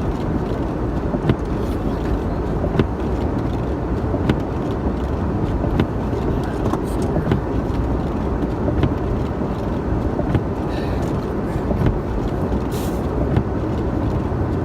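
A 1996 Ford Bronco's V8 engine running with a steady low rumble, heard from inside the cab. A faint click comes about every second and a half.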